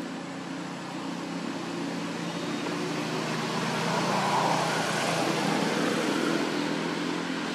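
Engine noise of something passing by, a steady hum under a wash of noise that swells to its loudest about four to five seconds in and then eases a little.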